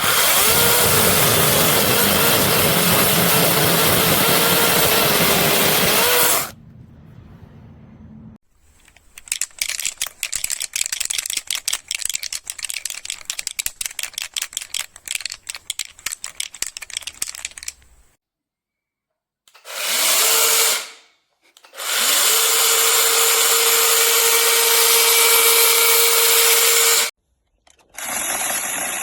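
Cordless brushless mini chainsaw running in several bursts, its motor pitch wavering in the first run. A stretch of rapid crackling follows, then a short burst and a longer steady run that stops abruptly.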